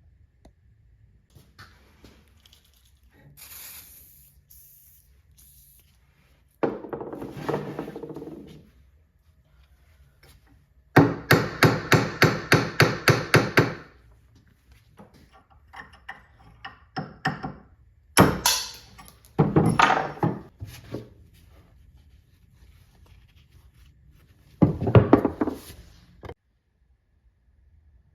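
Bursts of hammering during work on a pipe wrench. The loudest is a run of about a dozen quick, evenly spaced blows a little past the middle, with shorter clusters of knocks before and after it.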